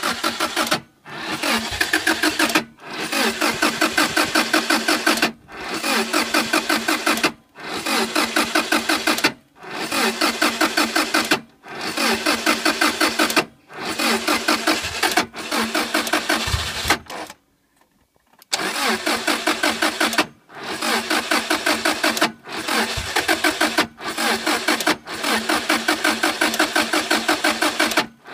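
Subaru Impreza GC8's flat-four engine being cranked by the starter in repeated bursts of about two seconds, turning over with an even rhythm but never catching. This is a no-start, even though it has fuel, spark and new ignition coils.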